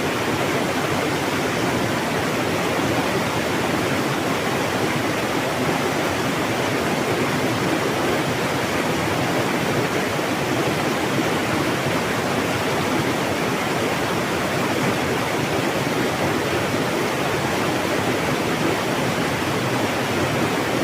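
Mountain water rushing steadily, a dense even roar of a fast stream or small waterfall.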